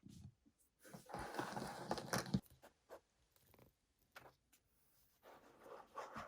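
Small plastic toy parts and packaging being handled: scattered clicks and two spells of rustling, the louder one about a second in.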